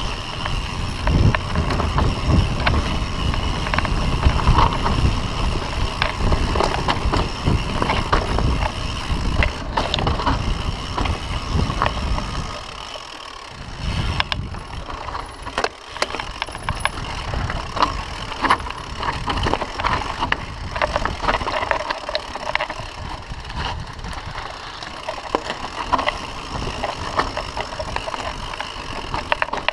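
Mountain bike descending a dirt singletrack: tyres crunching over dirt and small rocks, and the bike rattling and knocking over bumps, over a steady low rumble that thins out a little before halfway.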